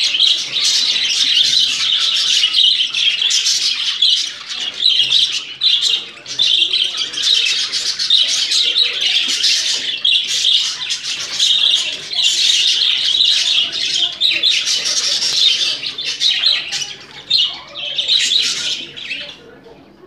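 Budgerigars chattering and warbling continuously: a dense, high, squawky twitter with brief lulls now and then and a fade near the end.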